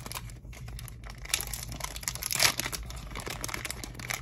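Pokémon booster pack's foil wrapper crinkling and tearing as it is opened by hand. The crackle is thickest from just over a second in and loudest a little before the middle.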